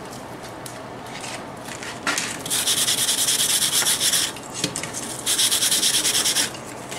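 Steel wire brush scrubbing forge scale off a glowing-hot iron bar on the anvil, in two bouts of rapid scratching strokes: one starting about two and a half seconds in and lasting over a second, the other about five seconds in. This cleans the scale off so the punch mark can be seen before the hole is punched.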